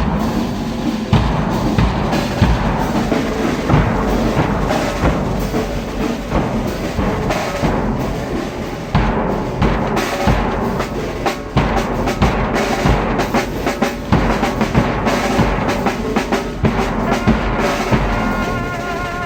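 Church brass band's drums beating loudly with many strikes, brass instruments starting to come in near the end.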